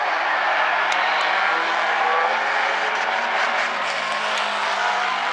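A field of Bumblebee-class race cars running laps together, several engines sounding at once at a steady pace, their pitches shifting slightly as cars pass.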